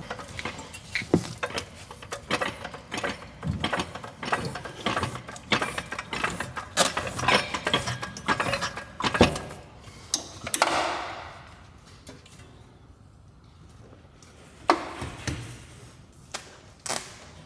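Repeated metallic clinks and knocks as a coilover strut body is worked down into the aluminium front steering knuckle, with a scraping rustle about ten seconds in and two sharper knocks near the end.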